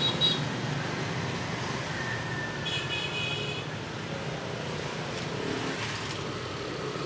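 Steady hum of street traffic, with a brief high-pitched tone about three seconds in.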